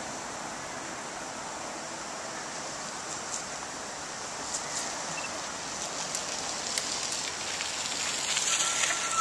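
Steady outdoor hiss, with scattered light clicks that grow louder and more frequent toward the end.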